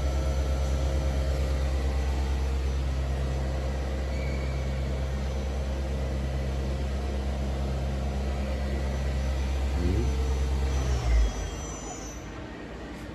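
Biglia B301 CNC lathe running with its spindle turning at speed, a steady low hum with a few fixed tones. About eleven seconds in there is a short thump, then the deep hum cuts out and the machine goes quieter as it winds down.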